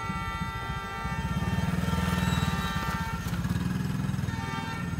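Motorbike engine running as it rides past close by, getting louder to a peak a little after two seconds in and then easing as it pulls away.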